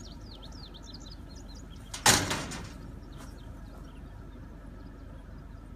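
A metal garbage bin's lid banging shut once, about two seconds in, with a short rattling ring after it, as a black bear pulls out of the bin with a trash bag. Birds chirp faintly in the first second.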